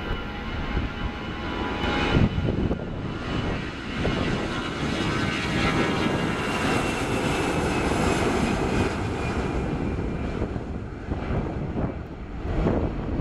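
Airbus A320 jet engines at takeoff thrust as the airliner speeds down the runway. The engine noise builds, peaks as the plane passes, with a high whine sliding down in pitch, then eases off. Wind buffets the microphone near the end.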